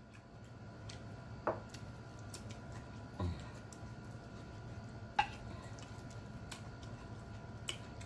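Food and shrimp skewers being handled and moved around on a plate: a few scattered faint clicks and knocks, about four in all, over a low steady hum.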